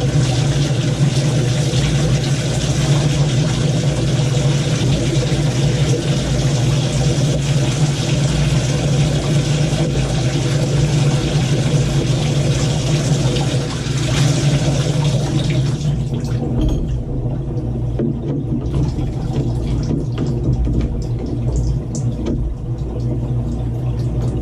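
Water running hard from a Moen tub and shower faucet as it is tested after a valve repair; the rush is cut off about sixteen seconds in. A steady low hum continues throughout.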